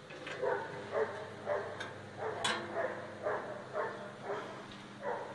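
A dog barking repeatedly, about two barks a second, with one sharp click about two and a half seconds in.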